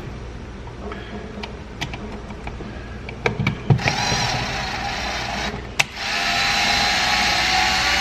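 Ryobi cordless drill driving an outlet's mounting screw into the electrical box. A few light clicks as the screw is set, then the motor runs with a steady whine about four seconds in, stops briefly near six seconds, and runs again.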